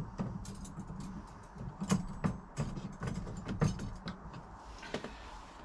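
Irregular clicks, taps and light knocks of a Dog-G8 folding dog gate and its stick-on hinge fittings being handled, with some light rattling.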